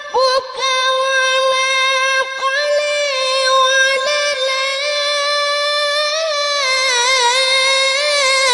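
A boy chanting a Quran recitation, drawing out one long, high held note that wavers and ornaments near the end, in a mournful, weeping style.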